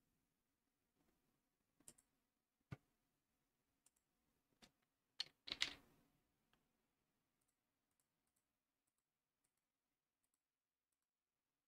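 Faint, scattered clicks of a computer mouse and keyboard: single clicks at first, then a louder quick cluster a little over five seconds in, followed by near silence.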